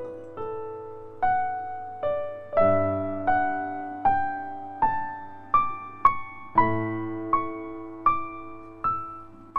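Slow background piano music: a melody of single struck notes, each ringing and fading, over a few low chords.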